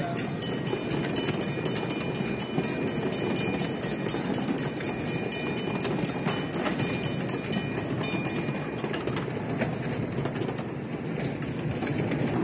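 Ridable miniature train's passenger cars rolling past on the track: a steady rumble with wheels clicking over the rail joints about four times a second and a thin, steady high squeal. The clicking stops about eight and a half seconds in as the last car goes by.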